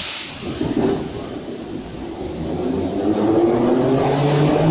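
81-540.7/541.7 metro train pulling out along the platform: its traction motors whine in several tones that climb steadily in pitch and grow louder as it gathers speed.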